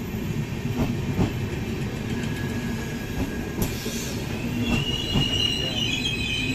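Indian Railways passenger coaches rolling slowly past on the adjacent track: a steady rumble of wheels on rail with scattered clicks, and a high wheel squeal that sets in from about four and a half seconds in.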